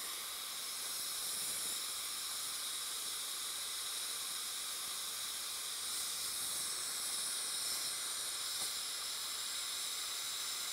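Air-acetylene torch flame hissing steadily as it heats a short copper tube.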